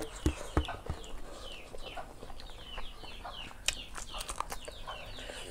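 Birds chirping over and over in short falling notes, with a few soft knocks in the first second.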